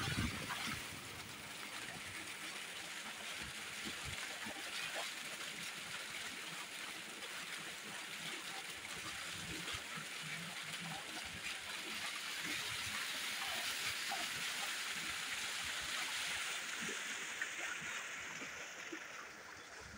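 Heavy stream of water pouring from a tubewell outlet pipe into a concrete tank, a steady rush with splashing as a sheep is washed in the water. The rushing fades over the last few seconds.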